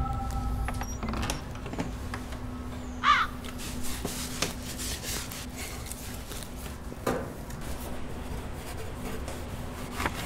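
Cloth wiping and rubbing on kitchen surfaces in irregular strokes, with a short squeak about three seconds in, over a steady low hum.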